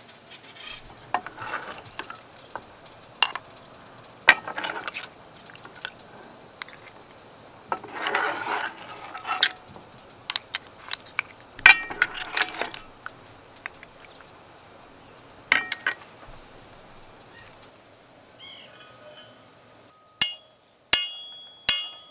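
Dishes and cooking utensils clinking and scraping in scattered knocks and short rustles, ending with three loud ringing metallic strikes about a second apart.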